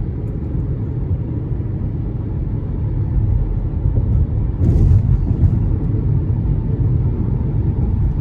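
Steady low rumble of car road and engine noise heard from inside a moving car, with a short rustle about halfway through.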